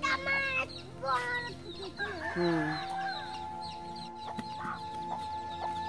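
A domestic hen clucking, with short pitched calls in the first second or so. A steady tone is held under it from about halfway on.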